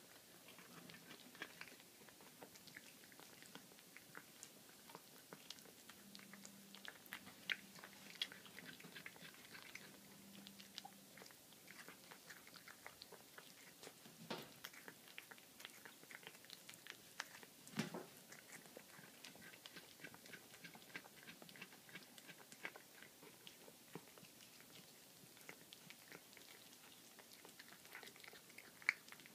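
Domestic cat chewing a baby rabbit: faint, irregular wet clicks and crunches of flesh and small bones. A few louder crunches come about 7, 14 and 18 seconds in and again near the end.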